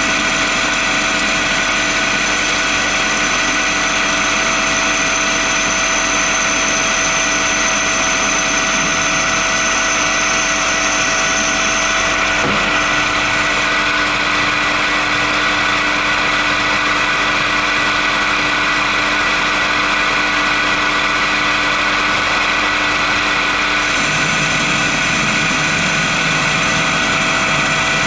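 Metal lathe running steadily while dry-machining a bushing, its spindle and gearing giving a steady hum with several held tones. A faint high whine drops out about halfway through, and the low hum shifts slightly near the end.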